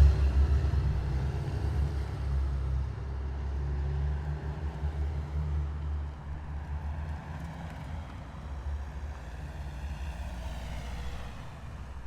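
Heavy military vehicle driving past, its low engine rumble loud at first and fading steadily as it moves away.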